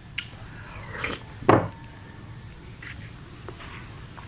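Eating sounds from a bowl of aloe vera dessert: chewing and biting, with a few light taps and clicks, and one louder sound about a second and a half in.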